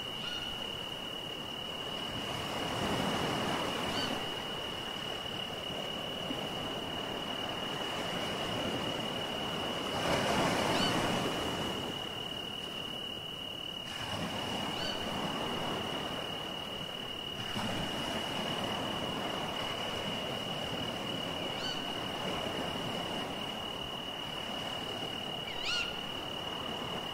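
Ocean waves washing in slow surges that swell and fade every few seconds. A steady high tone runs under them, and a few short rising chirps come every few seconds.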